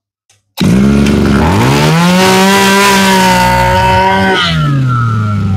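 Stihl FS 2100 brush cutter's two-stroke engine starting about half a second in, revving up to a high, steady pitch, then dropping back toward idle near the end.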